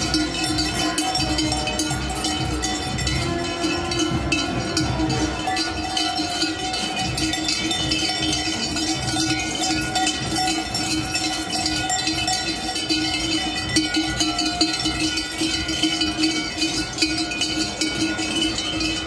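Many large cowbells ringing together in a dense, continuous clanging, kept up without pause.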